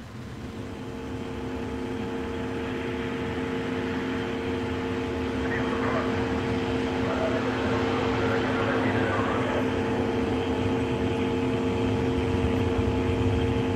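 Onboard audio feed from a Soyuz spacecraft cabin during the third-stage burn: a steady hum of several held tones over a hiss, growing gradually louder over the first few seconds. Faint voices come through about halfway in.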